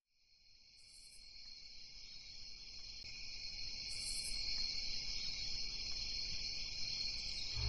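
Chorus of crickets chirping steadily, fading in slowly from silence. Two brief, higher-pitched buzzes sound over it, about a second in and about four seconds in.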